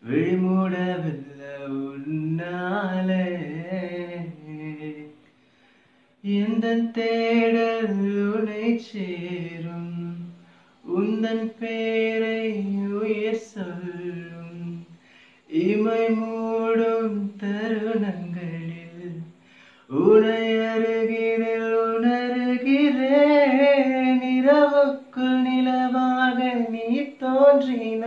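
A man singing unaccompanied, in long phrases of held notes that waver in pitch, with short breaths between phrases.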